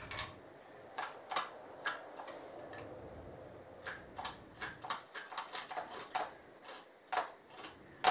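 Faint, irregular metallic clicks and taps from a Chrysler 360 V8's carburetor throttle linkage being worked by hand to pump the accelerator pump, with the engine not running. The clicks come faster from about halfway through.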